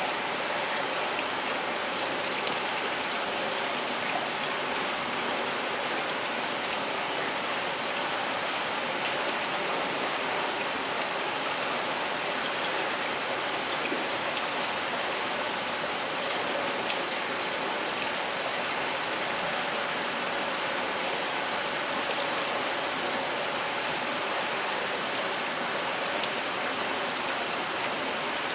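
Steady rush of water running through trout hatchery incubation troughs, with a faint steady hum underneath.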